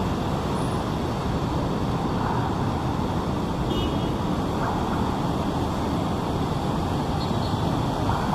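Steady road traffic noise of a busy city street, a continuous low rumble of passing vehicles.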